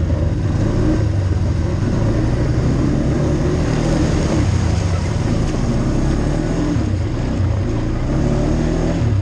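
ATV engine running as the machine is ridden over a rough, muddy trail, its note rising and falling a little with the throttle.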